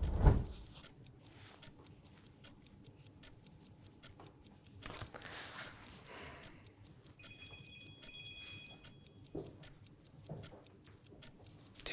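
Clock ticking, fast and even, counting down the answer time of a timed quiz question.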